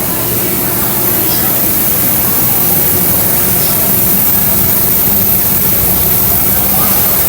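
Steady, loud rushing noise with indistinct voices of a crowd mixed in.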